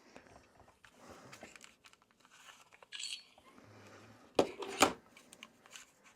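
Hard plastic toy sonic screwdriver being handled, with faint rubbing and rattling of the plastic parts and two sharp clicks about four and a half seconds in.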